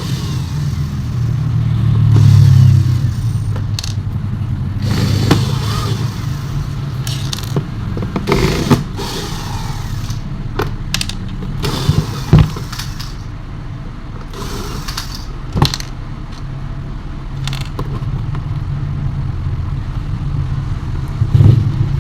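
Scattered knocks, clicks and scrapes of table fan parts and tools being handled during disassembly, over a steady low hum.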